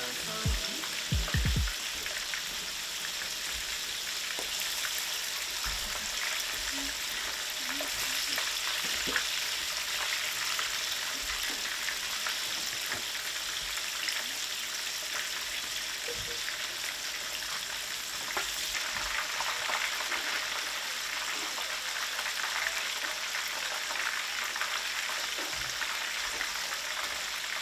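Chicken drumsticks deep-frying in hot oil in a pan, a steady sizzle with fine crackling and popping throughout. A few dull bumps sound in the first couple of seconds.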